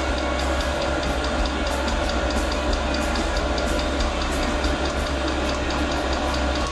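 Portable all-in-one diesel heater running at full power: a steady low hum from the combustion blower and burner, with the fuel dosing pump ticking in an even rapid rhythm.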